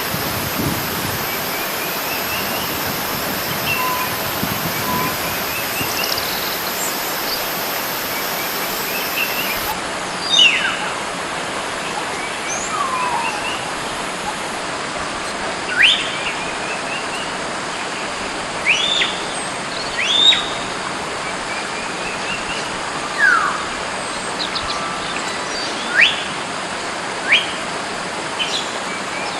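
Wild hill myna giving loud, sharp whistles, each a quick sweep in pitch, every two to three seconds from about ten seconds in, over a steady hiss. Fainter short rising chirps repeat through the first part.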